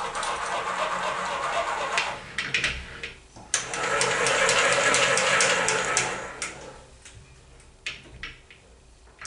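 Metal lathe slide being wound along by its handwheel: a dry mechanical whirring in two spells, the second and louder starting about three and a half seconds in, then a few light clicks near the end.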